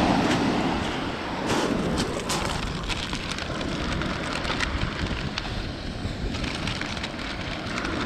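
Surf washing over a pebble beach, strongest near the start, with many small stones clicking and rattling.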